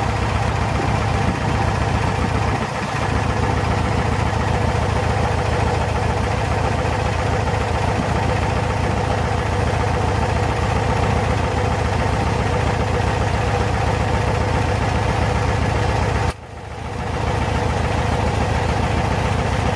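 Volkswagen Brazil Kombi's water-cooled four-cylinder engine idling steadily, with an even low pulse. About 16 seconds in the sound dips sharply and then recovers over about a second.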